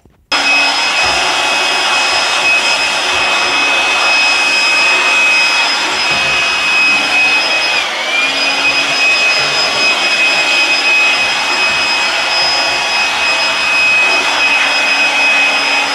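A high-speed electric fan motor, of the vacuum-cleaner or air-blower kind, switches on suddenly and runs at full speed with a loud rushing noise and a steady high whine. The whine dips briefly about halfway through, then starts to fall in pitch at the very end as the motor winds down.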